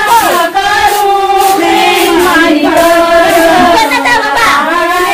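Women's voices singing a traditional wedding song together, in long held notes of a slow, chant-like melody.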